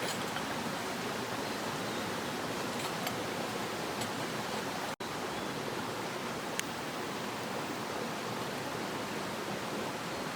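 Mountain stream rushing steadily, an even wash of flowing water; it cuts out for an instant about halfway through, with a couple of faint ticks.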